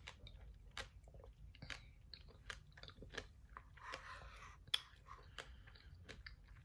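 Faint chewing and crunching of a mouthful of pomegranate seeds and berries, with irregular soft clicks and a brief noisy hiss about four seconds in.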